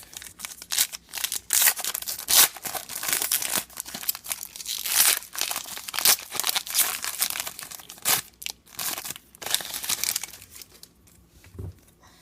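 Foil wrapper of a Topps trading card pack being torn open and crinkled by hand, a dense irregular crackle with sharp snaps that dies down near the end.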